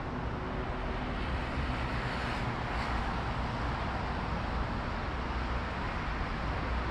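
Steady outdoor city ambience: a continuous low rumble and hiss of traffic noise, swelling slightly about two seconds in.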